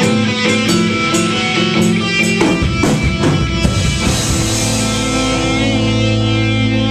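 Live rock band playing electric guitar, electric bass and drum kit, with a run of drum and cymbal hits about two and a half seconds in. From about four seconds in the drums stop and the guitar and bass hold one chord that rings on steadily.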